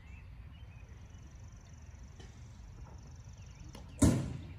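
Wind buffeting the microphone as a steady low rumble, with a faint thin high whine through the middle. About four seconds in comes a single sharp, loud knock that rings out briefly.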